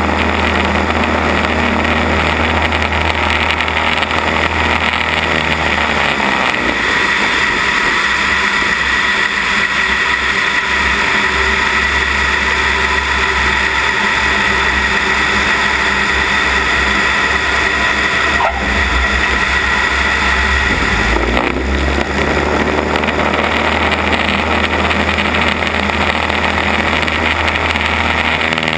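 Cessna 172 Skyhawk's piston engine and propeller running under heavy wind rush at a wing-mounted microphone during a runway roll. The tone changes for a stretch in the middle, with less low rumble and a clearer high whine, then returns to the deeper sound.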